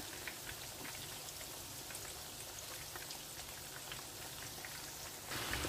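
Hot oil sizzling and crackling steadily around turkey wing pieces deep-frying in a pan, with many fine pops; the sizzle grows louder near the end.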